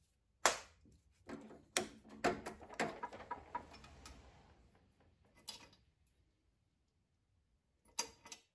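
Metal clicks and knocks from taking the drill bit out of a drill press chuck and handling it: a string of sharp clicks over the first few seconds, fading away, then a brief pair of clicks near the end.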